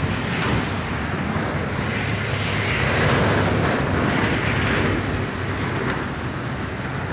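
Storm wind gusting across the phone's microphone as a rumbling rush, over a steady hiss of rain that is growing heavier. The rush swells about three seconds in.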